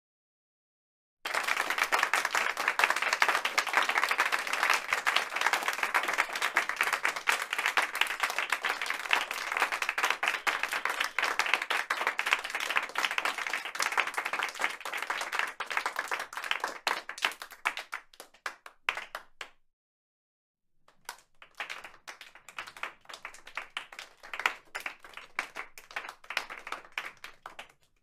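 Crowd applause, many hands clapping densely, that thins out and dies away; after a short silence a second, quieter round of applause starts and fades out near the end.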